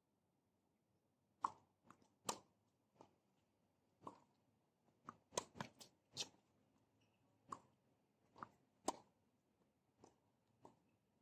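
Tennis ball being struck by racquets and bouncing on a hard court during a rally: a dozen or so sharp, faint knocks at uneven spacing, starting about a second and a half in.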